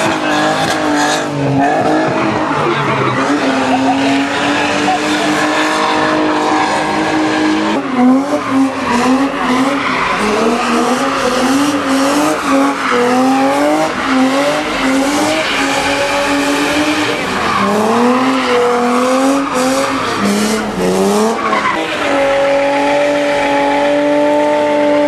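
BMW E36 doing donuts: the engine is held high on the throttle, its revs jumping up and falling back over and over, with the tyres squealing and skidding on asphalt. Near the end the revs hold steady.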